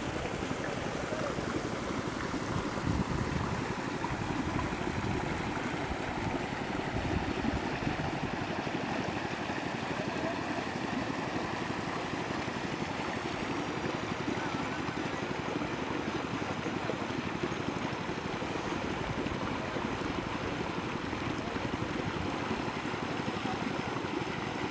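Steady outdoor wind noise, with uneven low rumbling from wind buffeting the microphone.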